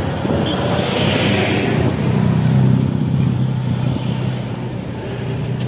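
Intercity bus engine and growling exhaust running, settling into a steady low drone about halfway in, with a hiss in the first two seconds.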